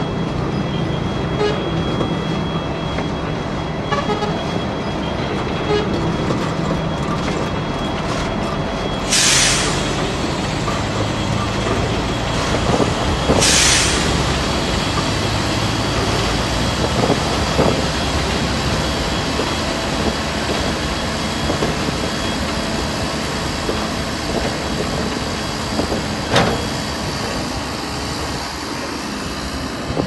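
Heavy diesel earthmoving machinery, bulldozer and dump trucks, running steadily, with two short bursts of hissing air about nine and thirteen seconds in and a single sharp knock near the end.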